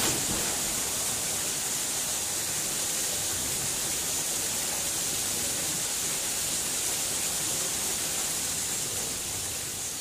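Steady rush of falling water from a waterfall, an even hiss with no break, easing off slightly near the end.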